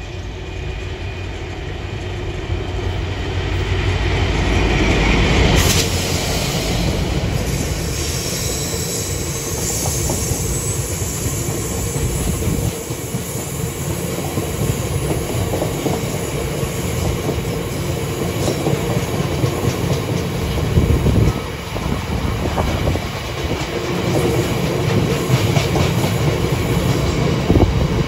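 Class 69 diesel-electric freight locomotive, re-engined with an EMD 710 diesel, approaching and passing at speed. Its engine and rumble are loudest about five seconds in. A long rake of loaded sand hopper wagons follows, running past with a steady clatter of wheels over the rail joints.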